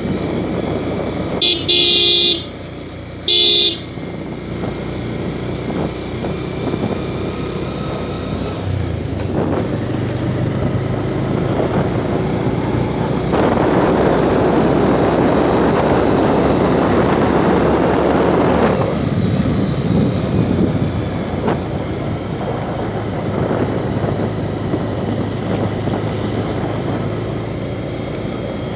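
Motorcycle running along a dirt road, its horn beeping twice in short blasts a couple of seconds in. Steady engine and road noise follows, with a louder rushing stretch from about thirteen to nineteen seconds in.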